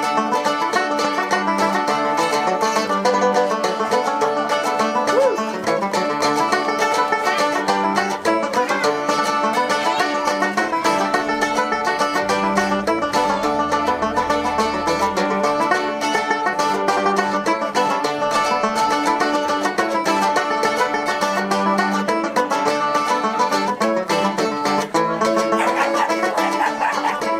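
Live instrumental music of plucked strings, played steadily with no singing.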